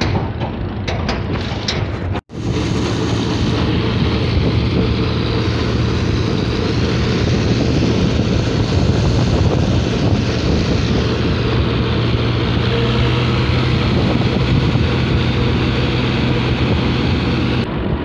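The engine of the open vehicle being ridden runs steadily with an even low hum, under road and wind noise. The sound drops out for an instant about two seconds in.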